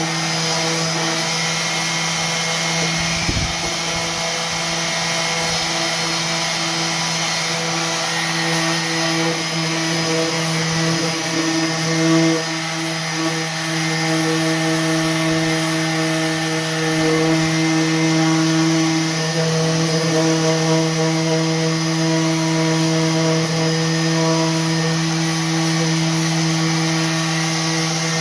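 Electric orbital sander running steadily against painted wood, a constant motor hum that dips briefly in pitch a few times as it is pressed on, sanding back the paint on drawer edges for a distressed finish.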